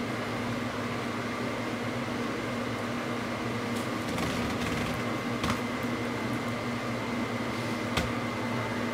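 Steady machine hum with a constant tone, with two brief faint clicks about five and a half and eight seconds in.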